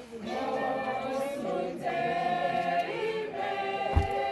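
A group of mourners singing together unaccompanied, holding long drawn-out notes. A single dull thump comes near the end.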